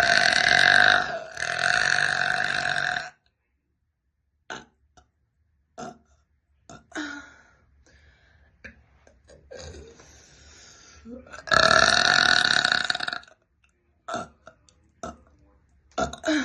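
A person burping: two long, loud belches back to back at the start, a quiet stretch with small clicks and breaths, then a third long belch about twelve seconds in.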